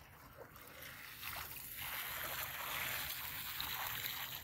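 Irrigation water running through a field channel: a steady rushing hiss that grows louder about a second in.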